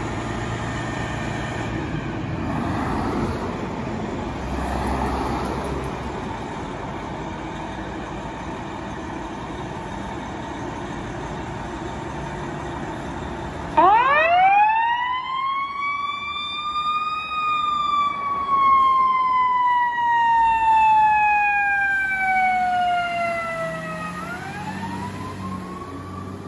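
A fire truck's engine runs with a low rumble as it pulls out. About halfway through, its siren starts suddenly, winds up into a long wail and slowly falls in pitch, then begins to rise again near the end.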